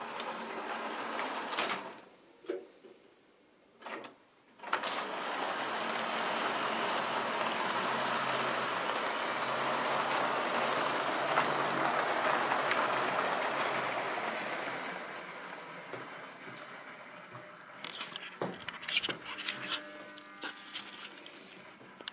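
Model railway train running past on its track: a steady rumble and clatter of wheels and motor swells from about five seconds in, peaks around ten to twelve seconds and fades as the train passes. Near the end come scattered clicks and knocks.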